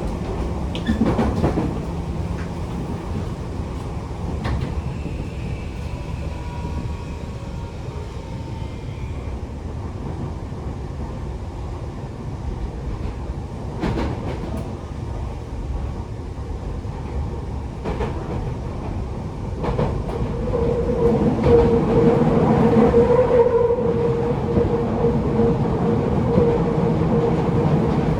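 Toei 6500 series subway car running between stations, heard from inside the car: a steady rumble of wheels on rail with a few sharp clacks. About twenty seconds in the running noise grows louder and a steady whine from the Mitsubishi hybrid SiC VVVF inverter and induction motors joins it.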